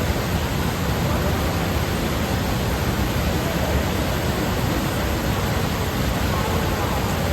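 Fukiware Falls on the Katashina River: water pouring and rushing in a loud, steady, unbroken noise, heaviest in the low end.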